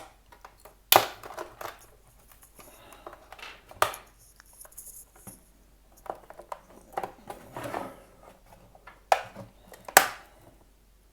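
Plastic housing of a Cisco Meraki MR46 access point being pried apart: scraping and crackling, with sharp snaps and clicks about a second in, near four seconds and twice near the end, as the pressure-fitted shell halves are forced.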